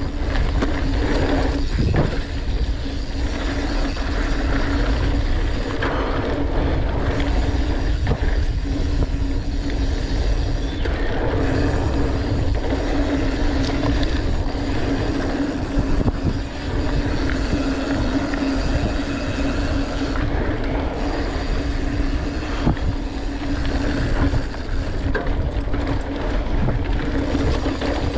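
Norco Torrent Steel hardtail mountain bike rolling down a dirt trail: a continuous rumble of tyres on the ground and wind on the microphone, with a steady hum throughout and scattered small knocks and rattles from bumps.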